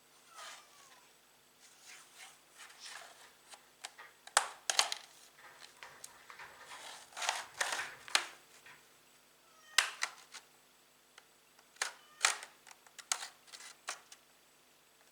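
Irregular sharp clicks, taps and short scrapes of hands and small tools handling a laptop's plastic case and parts, the loudest clicks about four, ten and twelve seconds in, over a faint steady hum.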